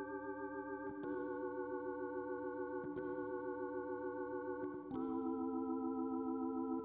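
Background music of sustained, slightly wavering chords that change about a second in and again about five seconds in.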